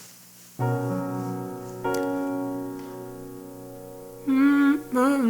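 Keyboard playing two sustained piano chords, about half a second and two seconds in, to try out the newly transposed key. A short burst of voice comes near the end.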